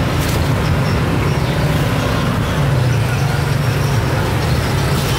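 Street traffic noise: a steady low rumble of passing motor vehicles.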